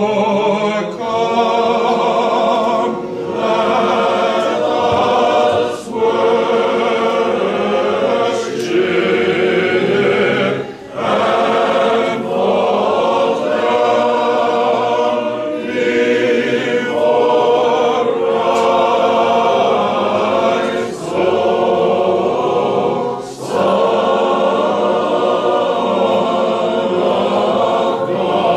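Church choir singing Orthodox liturgical chant, in phrases a few seconds long with short breaks between them.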